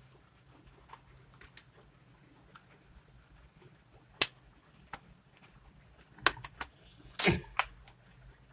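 Scattered clicks and taps from laptop parts being handled and taken apart. There is a sharp click about four seconds in, a few quick clicks around six and a half seconds, and the loudest sound, a heavier knock with a short dull tail, just past seven seconds.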